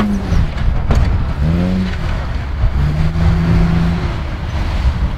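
Modified Toyota Land Cruiser's engine revving as it crawls over rocks: a rev rises about one and a half seconds in, and then the engine holds a steady, higher speed for about a second around three seconds in, over a constant low rumble.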